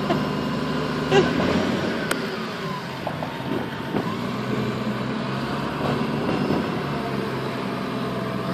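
Diesel engine of a large Hyster container-handling forklift running steadily as the machine drives and turns on a test run after repair.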